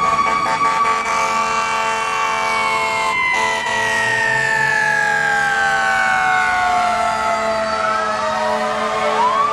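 Siren wailing: one long, slow fall in pitch, then starting to rise again near the end, over a steady bed of lower tones.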